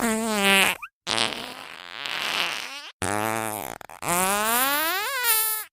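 A run of cartoon fart sound effects, one after another: a pitched one ending about a second in, a longer breathy, hissing one, a short low one, and a long one that rises steadily in pitch before cutting off.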